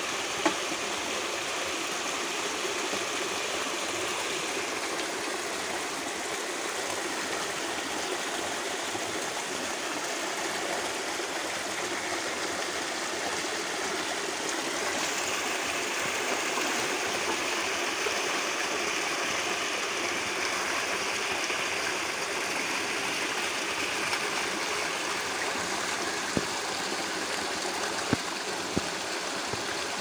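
Shallow forest stream rushing steadily over rocks and through a narrow chute between boulders. A few sharp clicks or knocks stand out, one just after the start and several near the end.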